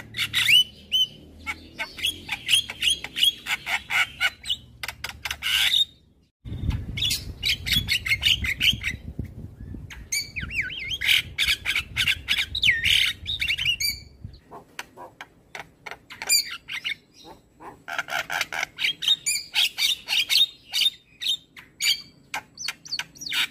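Javan myna calling: rapid runs of harsh chattering and squawking notes mixed with short rising whistles, in bursts a few seconds long. The recording cuts abruptly about six seconds in and again around fourteen seconds, each time changing the background.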